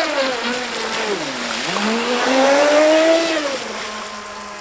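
Electric RC speedboat's motor whining as it is throttled on the water. The pitch drops about a second and a half in, climbs to its highest around three seconds, then eases off to a lower, steady tone near the end.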